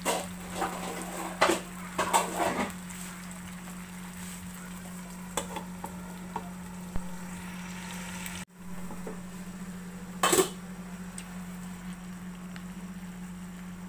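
Chicken sizzling in sauce in a nonstick frying pan while a spatula clatters and scrapes against the pan, over a steady low hum. A louder clatter about ten seconds in.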